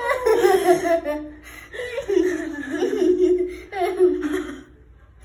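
Girls laughing hard in several bouts of high-pitched laughter, dying away about four and a half seconds in.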